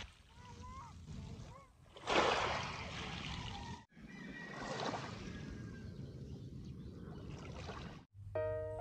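Small waves lapping and washing over coral rubble and pebbles at the water's edge, swelling about two seconds in and again near five seconds.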